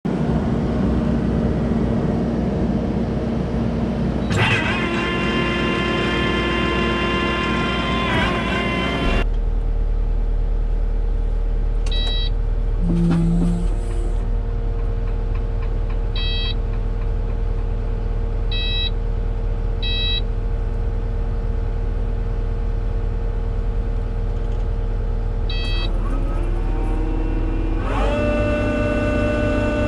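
Kubota SVL95-2 compact track loader's diesel engine running steadily, with a steady whine over it from about four to nine seconds in. Short beeps come several times. Near the end rising tones join in as the Bradco HP600 cold planer's milling head is switched on and spins up.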